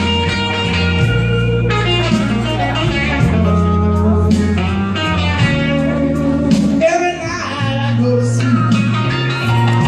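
Slow blues music: a karaoke backing track with a bending lead guitar line over steady, changing bass notes, between sung lines.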